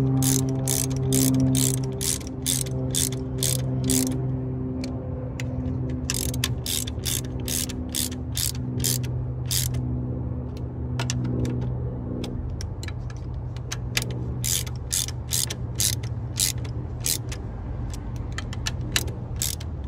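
Hand ratchet on a socket extension clicking as it snugs the bolts of an aluminum thermostat housing, about two to three clicks a second in runs broken by short pauses. A steady low hum lies underneath.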